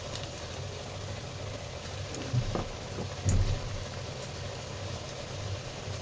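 Besan pakora batter frying in hot oil in a kadai: a steady sizzling and bubbling, with two dull low thumps about two and a half and three and a half seconds in.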